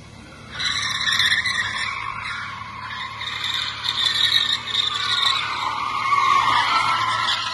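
Rear tyres of a BMW E46 320d touring squealing as the car drifts, starting about half a second in and going on with a wavering, uneven pitch.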